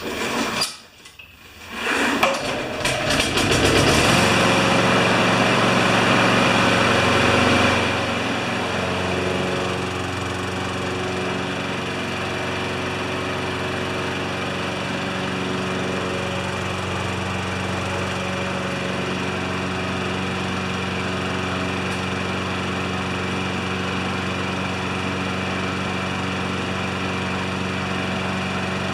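Briggs & Stratton 6.25 hp single-cylinder mower engine pull-started, catching about two seconds in. It runs loudest for a few seconds, then settles to a steady, slightly quieter run, freshly tuned with a new air filter and a cleaned plug.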